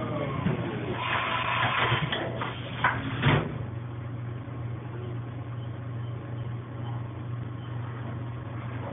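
Haas EC-400 horizontal machining center: a few mechanical clunks in the first seconds, the loudest about three seconds in, then a steady low machine hum.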